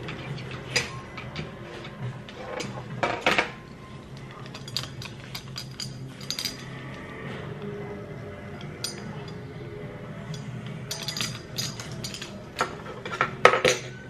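Scattered light clicks and metallic clinks of large gold-tone metal earrings being handled, taken off their card and fitted on, with a louder cluster of clicks near the end.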